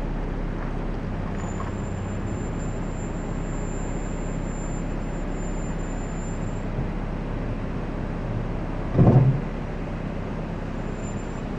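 Scion FR-S brakes squeaking: a thin, steady, high-pitched squeal that holds for about five seconds, then sounds again briefly near the end, over steady car and road noise. A single thump comes about nine seconds in.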